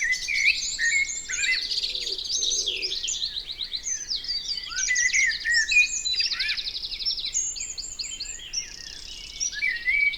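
Woodland dawn chorus in spring: many songbirds singing at once, their trills, whistles and rapid repeated notes overlapping with no pause.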